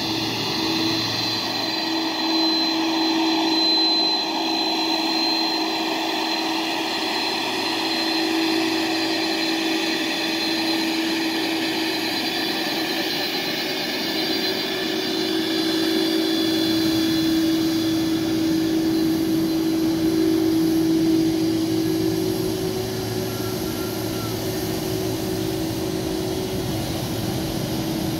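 Jet engines of a Boeing 767-300 freighter running at low taxi power as the aircraft rolls past: a steady whine with several high tones over a constant rush, growing slightly louder past the middle.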